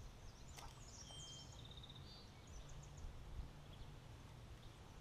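Quiet ambience with a low steady rumble. Faint bird calls come through: a short run of high chirps and a brief trill about a second in, and a few more chirps a little later. A single faint click comes just before the first calls.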